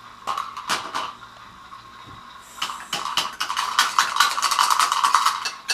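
Toy pots and utensils clattering: a few single clicks, then about two and a half seconds in a quick, continuous rattling and scraping as a pot is stirred fast.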